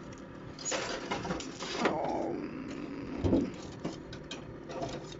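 Foil-wrapped pie pan scraping and sliding on the wire rack of a countertop electric oven as it is pushed further in, with metal clatter and a few knocks; one scrape falls in pitch about two seconds in. A faint steady hum runs underneath.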